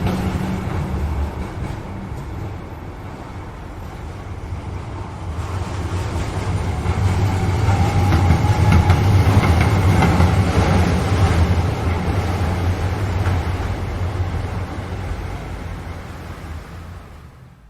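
Train passing: a deep rumble with rail clatter that swells to its loudest about halfway through, then fades away and stops near the end.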